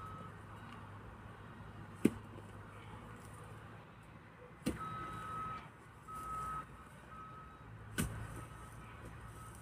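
A long-handled digging tool strikes the soil three times, about every three seconds, each a sharp, brief thud. A steady high-pitched beep sounds on and off from about halfway through.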